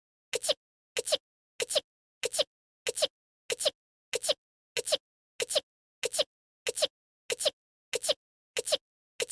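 A female anime character's short sneeze, the same clip looped over and over: about fifteen identical sneezes, each a quick two-part burst, about 0.6 s apart with silence between.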